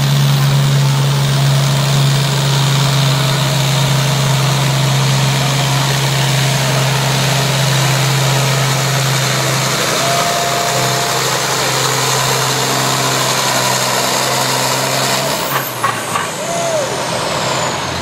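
International Harvester farm tractor's diesel engine running under heavy load as it pulls a weight-transfer sled, a loud steady drone. The drone's strong low note drops away about ten seconds in.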